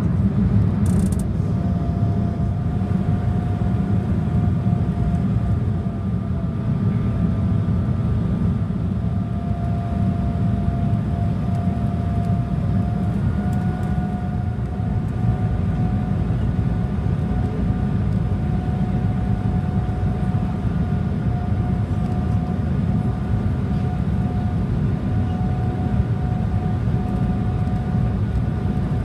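Jet airliner cabin noise from a seat by the wing on the landing approach: a steady low rumble of the turbofan engines and airflow, with a faint high engine whine that steps up slightly in pitch about halfway through.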